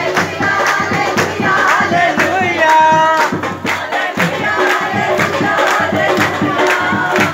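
A congregation singing a worship song together along with music that has a fast steady beat.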